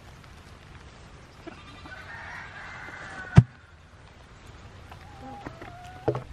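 Farm animal calls: a goat bleating and hens calling while they feed, one wavering call of about a second and a half, then a shorter one near the end. A single sharp knock about three and a half seconds in is the loudest sound, with a smaller knock near the end.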